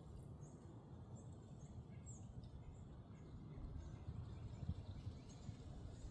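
Wind buffeting the microphone as a low rumble that grows louder a few seconds in, with faint, scattered chirps of small birds.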